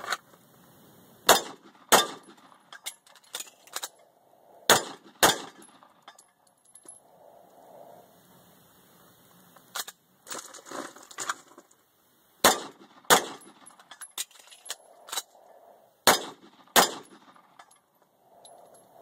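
Sig 220 Combat .45 ACP pistol fired in four pairs of shots, each pair about two-thirds of a second apart, with several seconds of magazine-change clicks and clacks between the pairs. Faint clangs from the steel target being hit follow the shots.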